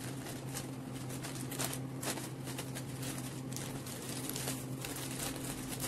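Wrapping paper rustling and crinkling in irregular bursts as hands fold it around a bouquet, over a steady low hum.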